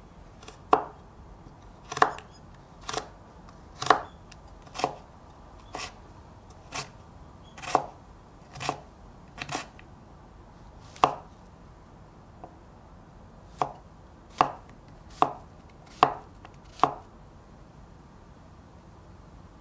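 Kitchen knife chopping carrot on a wooden cutting board: slow, separate strikes about once a second, around eighteen in all, stopping near the end.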